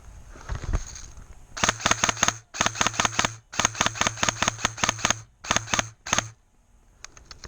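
Airsoft gun firing on full auto in five short bursts, a rapid even rattle of about eight shots a second with a motor hum under each burst.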